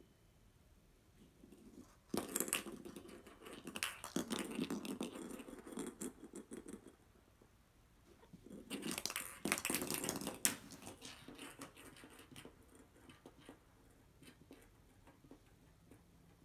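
Small hollow plastic ball toy pawed and rolled by a cat across a wooden floor, scraping and clattering in two spells of a few seconds each, with a sharp click near the end of the second.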